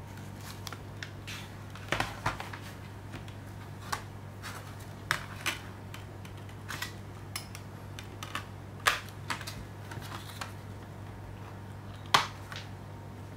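Irregular clicks and taps of clear plastic Blu-ray disc trays being handled and discs being pried off their centre hubs, with a sharper snap near the end. A steady low hum runs underneath.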